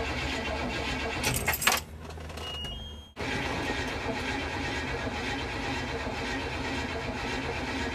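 Chevrolet Impala engine cranking on the starter while the gas pedal is pumped, failing to start. The steady mechanical clatter drops away briefly about two seconds in, then comes back abruptly.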